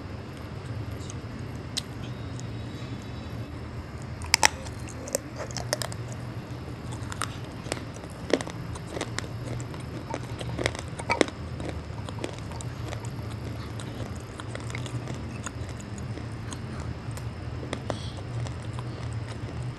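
Biting and chewing pieces of baked multani mitti (Fuller's earth clay): a run of sharp, dry crunches in the first half, the loudest about four seconds in, then fainter chewing. A steady low hum sits underneath.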